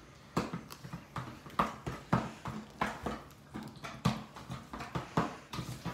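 Mixing utensil knocking against the side of a bowl while a thick ricotta, egg and parmesan filling is stirred, in uneven clacks about two or three a second.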